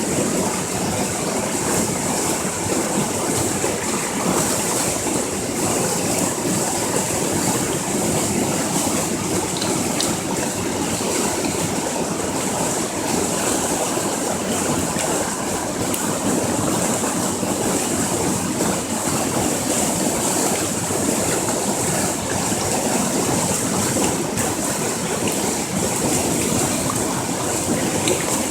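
Waterfall: water rushing and splashing in a steady, unbroken roar of noise.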